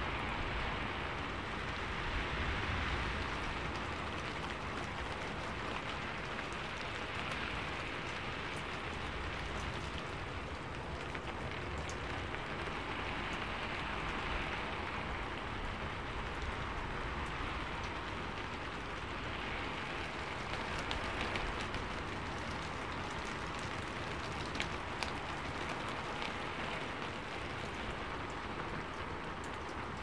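Steady rain falling, an even hiss that swells and eases gently, with a couple of sharper drop ticks near the end.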